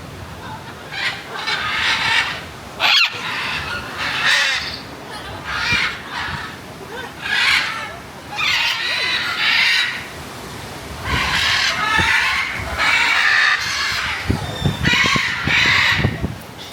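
Parrots squawking: harsh, loud calls repeated about once a second, one after another.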